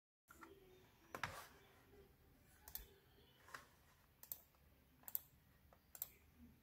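Faint clicks of laptop keyboard keys pressed one at a time: six separate clicks, roughly a second apart.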